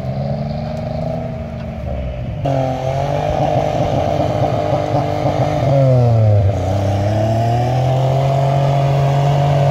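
Engine of a lifted off-road SUV running under load and revving as it drives through snow. Its pitch jumps up abruptly about two and a half seconds in, drops about six seconds in, then climbs back and holds steady.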